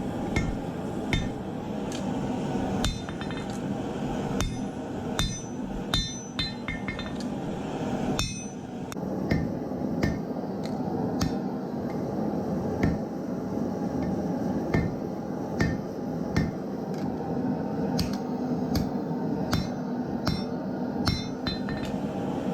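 Hammer blows forging a leaf-spring steel cleaver blank: irregular ringing metal strikes, about one or two a second, over a steady rushing noise.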